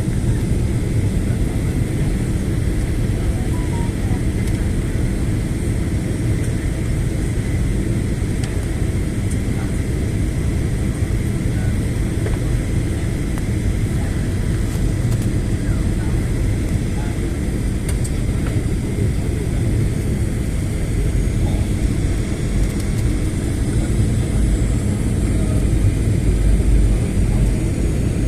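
Steady passenger-plane cabin noise on the descent to land: a low rumble of the engines and airflow with faint steady high tones, getting a little louder near the end.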